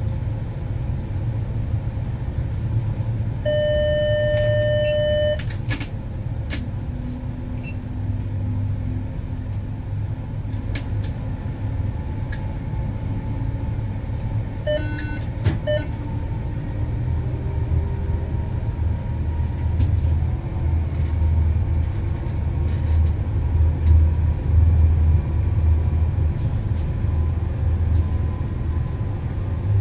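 Electric train running along the track, heard from the driver's cab: a steady low rumble of wheels on rails with scattered light clicks, growing a little louder in the last few seconds. About three and a half seconds in an electronic beep sounds for nearly two seconds, and a few short beeps follow about halfway through.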